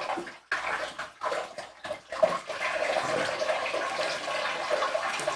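Water poured from a plastic pitcher splashing over rockwool grow blocks and running off into the tray, to flush the lime out of the freshly soaked blocks. The pour comes in uneven spurts with short breaks for about two seconds, then settles into a steady splashing stream.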